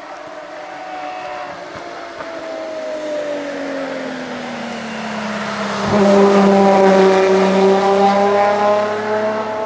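Open-cockpit sports prototype race car, its engine note falling steadily as it slows for a bend. About six seconds in it suddenly gets much louder as it passes close by, and the pitch climbs again as it accelerates away.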